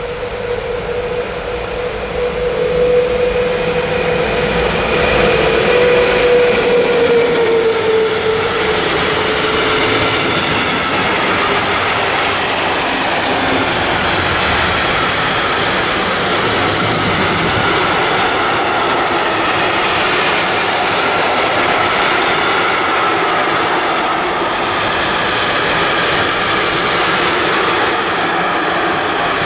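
Freight train of loaded tank wagons, hauled by a locomotive, rolling past at speed. Its wheels and wagons run as a steady dense rumble that builds over the first few seconds. A steady whining tone is heard through the first third, dropping slightly in pitch as the locomotive goes by.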